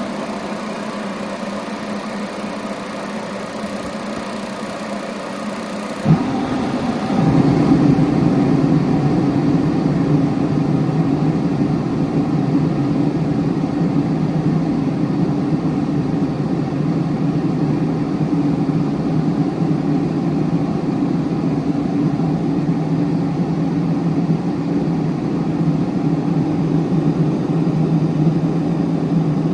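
Dyna-Glo forced-air propane heater running: a steady hum, then a sharp pop about six seconds in, after which it runs louder and deeper, steady to the end.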